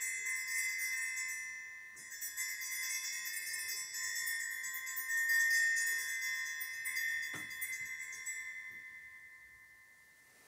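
Altar bells (a cluster of small sanctus bells) ringing at the elevation of the chalice, marking the consecration of the wine. The bells are shaken, rung again about two seconds in, and the ringing dies away near the end, with a single light knock about seven seconds in.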